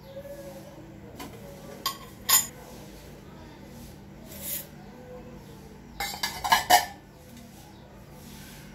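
Stainless steel bowls clinking against each other as small bowls of spice powder and crystal salt are tipped into a larger steel bowl. Two sharp clinks come about two seconds in, a short hiss near the middle, and a quick run of clinks and taps at about six and a half seconds.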